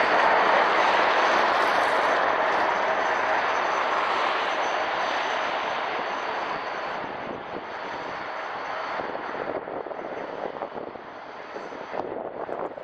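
Two-unit Tatra KT4D tram running past on its rails: a steady rolling and running noise with a faint high whine, loudest at first and fading steadily as the tram draws away.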